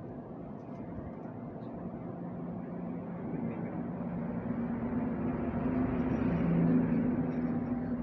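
A motor vehicle engine running, with a low drone that grows louder over several seconds and eases off slightly near the end.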